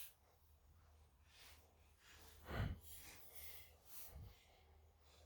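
Near silence: room tone, with one brief soft sound about two and a half seconds in and a few fainter ticks.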